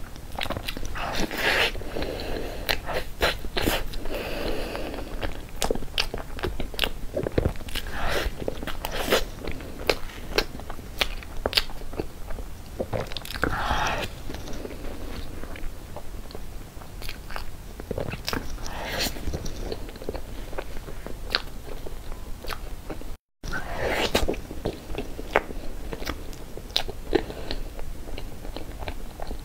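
Close-miked eating sounds of someone chewing mouthfuls of cream cake: wet chewing and smacking with frequent sharp clicks. The sound briefly cuts out about three-quarters of the way through.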